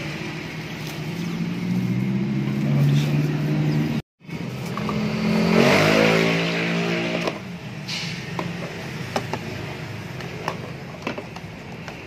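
Motor vehicle engine running, loudest about halfway through as a vehicle goes past, then fading. Afterwards come light clicks and rustling of wiring being handled.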